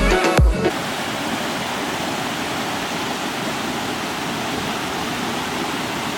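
Dance music cuts off in the first half second. Then comes the steady rush of Elk River Falls, an even wash of falling water.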